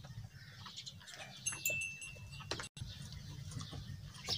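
Quiet farmyard background with faint scattered ticks and rustles, and one short, high animal call about one and a half seconds in.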